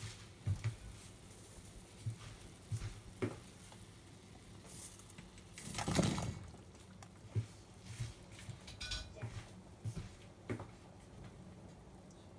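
Scattered light clinks and knocks of metal kitchenware around a stainless pot of simmering broth. About halfway through comes a louder splash, the loudest sound here, as taro is tipped from a stainless mesh strainer into the pot.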